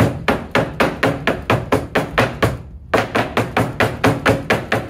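Batter-filled metal sheet pan being banged down repeatedly, about four sharp knocks a second with a brief pause partway through, to drive the air bubbles out of the pumpkin-roll batter.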